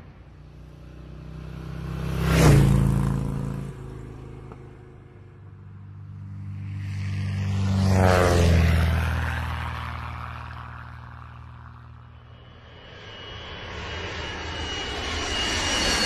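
An engine passing by twice, each pass swelling to a peak and fading, with the pitch dropping as it goes past; a third pass builds near the end.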